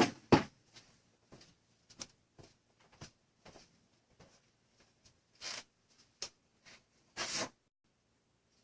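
Scattered handling noises: a few light clicks and taps, then two short scraping or rustling sounds, the louder one about seven seconds in.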